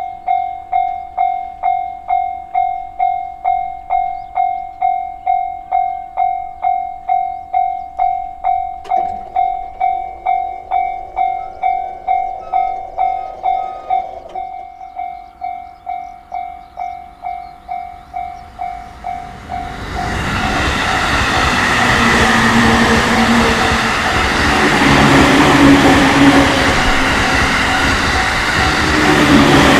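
Japanese railway level-crossing warning bell: an electronic clanging tone striking about twice a second, a little softer after about fourteen seconds. About twenty seconds in, a JR Takasaki Line train passes through the crossing, and the loud rush of wheels on rail drowns out the bell.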